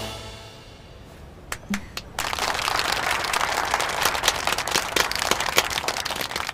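An audience applauding after a dance number: a couple of lone claps about a second and a half in, then many hands clapping steadily from about two seconds in.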